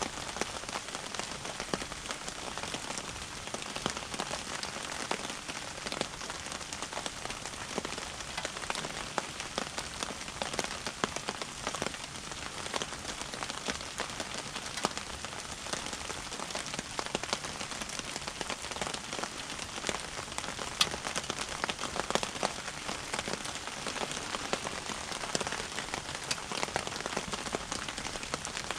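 Rain falling steadily, a dense, even patter of many small drop ticks.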